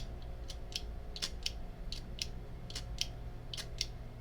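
Elgin American automatic lighter mechanism being worked by hand over and over, giving a run of sharp metallic clicks, often in pairs, about two or three a second, as the action is snapped to strike the flint wheel against a freshly loaded flint to test for a spark.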